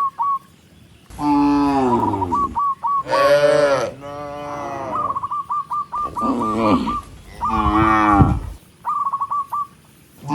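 Cattle mooing repeatedly: several long calls that fall in pitch. Between the moos a bird gives quick series of short high chirps.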